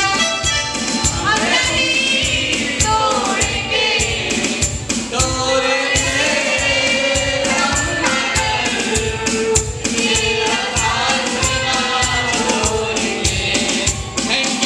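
Group singing into microphones over loud amplified backing music with a steady drum beat, several voices singing together.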